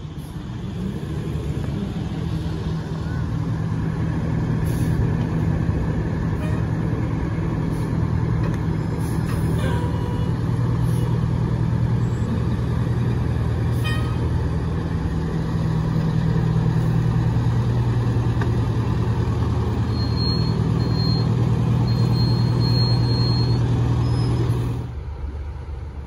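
Diesel engines of fire trucks running as they drive slowly past at close range: a steady low engine drone that builds over the first couple of seconds, holds, and drops off suddenly near the end.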